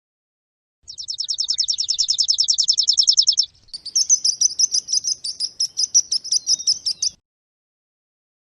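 A small bird singing: a fast, high trill of about twelve notes a second for two and a half seconds, then after a short break a run of quicker separate high chirps, about four a second, that stops abruptly near the end.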